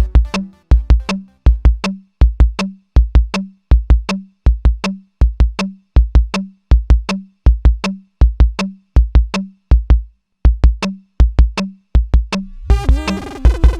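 Electronic music: a bare, repeating drum-machine kick pattern in pairs of beats, until dense synthesizer layers come in about a second before the end.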